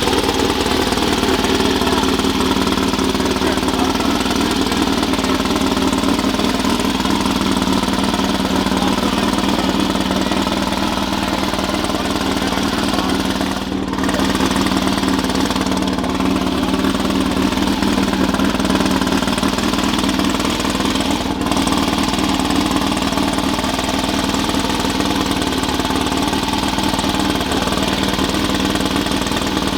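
An engine running steadily at one constant speed, with no revving.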